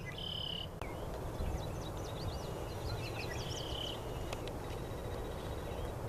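Red-winged blackbird song: two short buzzy trills about three seconds apart, with quick high chirps between them, over a steady low rumble.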